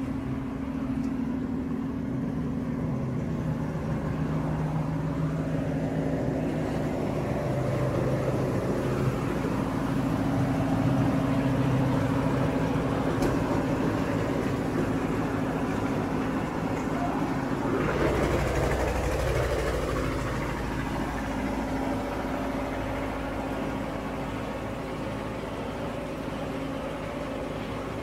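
Engine-driven ice crusher and bucket conveyor running steadily, loading crushed ice for fishing boats, with a low engine drone and throb. A louder, rougher stretch comes about two-thirds of the way through, as a block of ice is ground.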